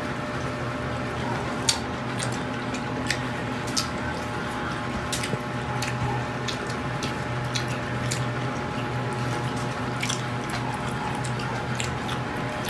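Close-up eating sounds of stir-fried pork intestine: wet, squishy chewing with scattered sharp clicks, over a steady low hum.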